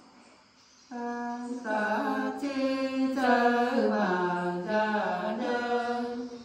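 Women singing a Nùng folk song unaccompanied, in long held notes that waver and bend in pitch. The singing begins about a second in, after a short quiet pause.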